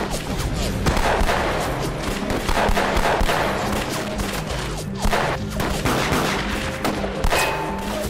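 Rapid pistol gunfire from several guns at once: a dense, overlapping volley of shots with little pause between them.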